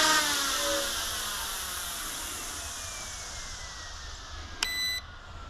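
UXIANG F09-S scale RC helicopter's electric rotor motor spinning down, its whine falling steadily in pitch and fading as the battery runs out. About four and a half seconds in comes one short electronic beep.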